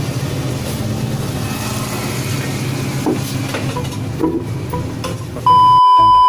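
Steady low machine hum with hiss and a few small clicks. About five and a half seconds in it cuts off abruptly and a loud, steady high beep sounds.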